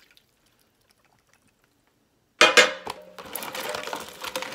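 Near silence, then about two and a half seconds in, hands start washing rock crab pieces in lime juice and water in a plastic tub: the shells clatter and click against each other and the tub, with splashing water and a steady faint hum behind.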